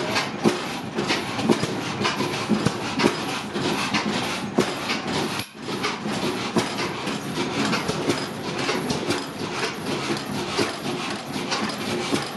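Large antique stationary engines running together in a shed, among them a T.W. Phillips engine from Butler with its flywheels spinning: a loud, dense clatter of sharp knocks at an uneven rhythm.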